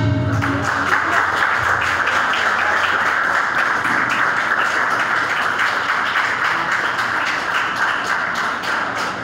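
A held sung note with its accompaniment stops just after the start, then a small congregation applauds with steady hand clapping that begins to fade near the end.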